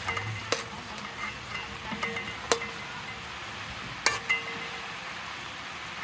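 Pork stir-fry sizzling in sauce in a wok while a metal spatula stirs it, clacking sharply against the pan four times, each clack leaving a short metallic ring.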